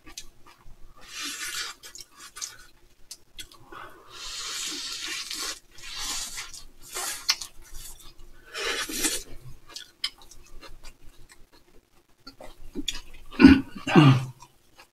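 Eating sounds from mini hamburgers on soft dinner rolls being chewed, with several long breathy hisses spread through, and a short hummed vocal sound near the end.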